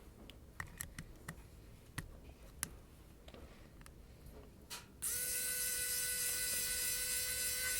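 Wowstick electric precision screwdriver's small motor spinning with a steady whine for nearly three seconds, starting about five seconds in; the tool is not yet fully charged. Before it, a few light clicks and taps of handling.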